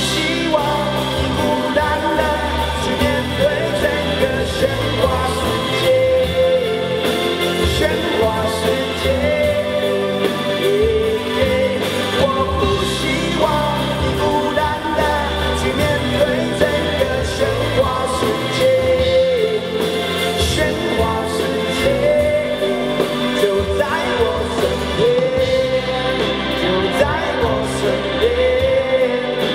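A pop-rock band playing, with a male voice singing the melody over electric guitars, bass and a drum kit.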